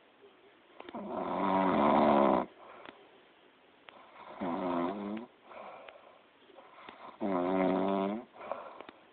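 Loud snoring: three snores about three seconds apart, each lasting about a second, the first the loudest and longest.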